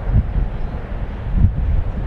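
Wind buffeting the microphone in uneven gusts over the rumble of a Boeing 757's jet engines as the airliner rolls out down the runway after touchdown.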